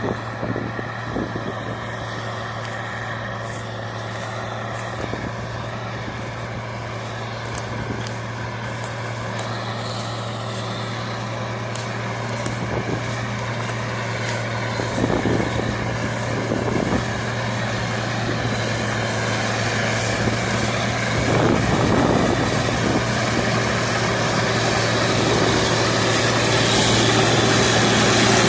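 Large diesel farm machine running steadily under work, with a deep hum and a scatter of small ticks over the first two-thirds, growing slowly louder toward the end.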